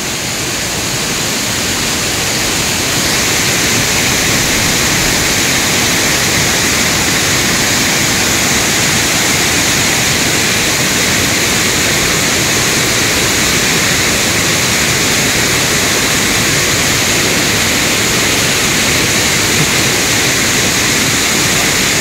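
Waterfall: a loud, steady rush of falling water that grows a little louder over the first few seconds.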